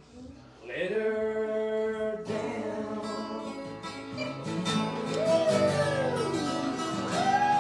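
Acoustic guitar strumming with a voice singing long, wordless held notes that slide in pitch: the last bars of a country song. A long note is held first, the strumming comes in about two seconds in, and the sung notes slide down and then rise and fall again near the end.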